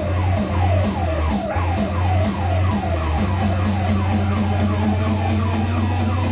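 Electronic music played loud through a sound system powered by CVR digital amplifiers: heavy bass and a repeating, siren-like falling synth figure several times a second. The bass pulses at first, then holds steady about halfway through.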